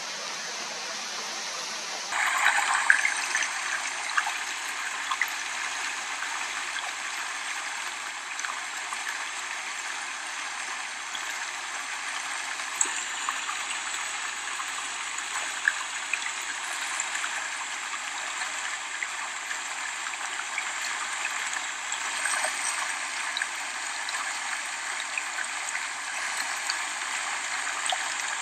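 Steady rush of flowing stream water, an even hiss that turns brighter and a little louder about two seconds in.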